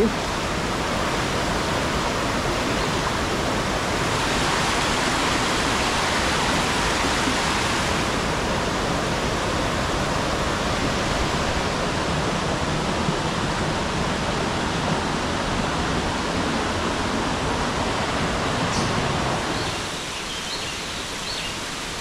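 Fast-flowing river water rushing steadily, a swift current being waded across. It drops a little in level near the end.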